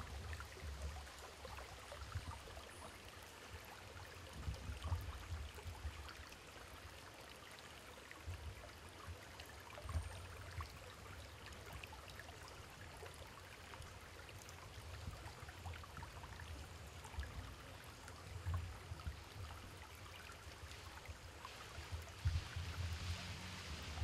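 Faint running stream water, an even rushing hiss, with uneven low rumbles coming and going underneath.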